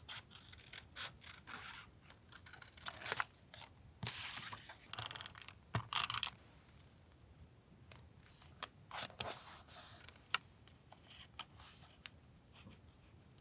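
Paper being handled for collage journaling: irregular rustling and scraping of paper, with short sharp clicks and a louder run of paper noise around the middle.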